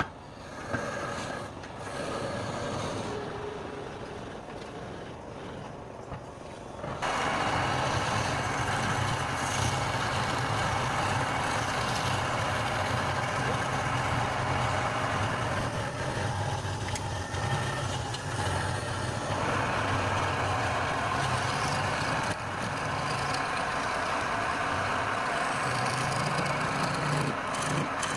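Wood lathe running steadily with a low hum; about seven seconds in the sound jumps louder and fuller and then holds steady.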